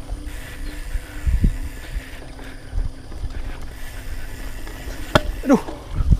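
Hardtail mountain bike rolling fast downhill over grass and dirt singletrack: tyre rumble with low thuds over bumps, and wind on the microphone. About five seconds in, a sharp click is followed by a short falling squeal.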